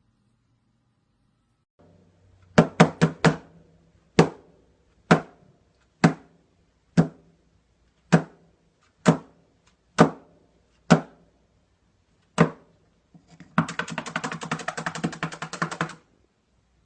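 Sharp knocks or taps on a hard surface: a quick run of four, then single knocks about one a second, then a fast rattling run of taps near the end.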